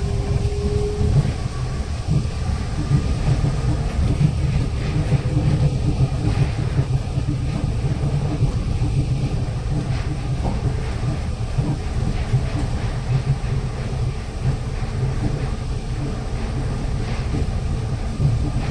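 Nippori-Toneri Liner rubber-tyred automated guideway train running along its elevated concrete guideway, heard from inside the front car: a steady low rumble of tyres and running gear.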